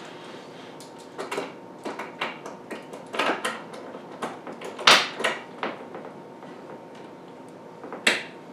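Oak face-frame boards and a metal hand clamp knocking and clicking on a wooden workbench as a joint is lined up and clamped. The knocks come as an irregular string of light ones, with sharper ones about five seconds in and again near the end.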